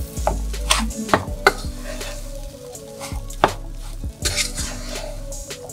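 A wooden spoon stirring and turning a thick mix of mashed pigeon peas and boiled yam cubes in a metal pot. Irregular knocks and scrapes of the spoon against the pot come every half second to a second.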